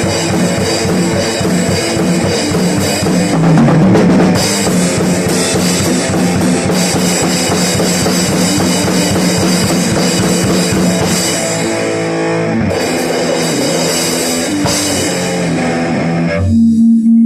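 Rock instrumental with a full drum kit (kick drum and steady cymbals) under electric guitar. About a second before the end the drums drop out, leaving a held guitar note.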